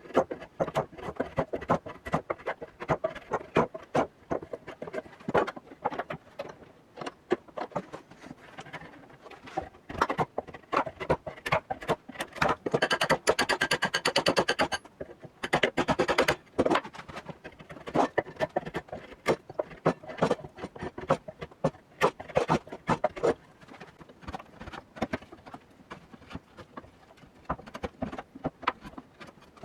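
Hand tools working on the rusty iron head of a hand-forged pick/hoe: irregular scraping and rubbing strokes with many small clicks and taps, and a stretch of faster, hissier scrubbing about halfway through.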